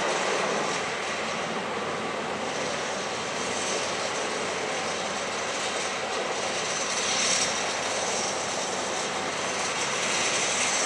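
Mount Washington Cog Railway train, a locomotive and coach, coming down the steep cog track with a steady mechanical drone.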